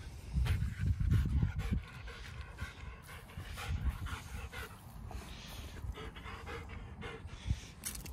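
A dog panting in quick, steady breaths as it searches around a bench by scent, a sign of the heat. A low rumble on the microphone is loudest in the first two seconds.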